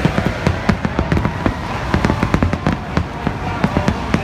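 Fireworks going off, a rapid, irregular string of sharp bangs and crackles, several a second.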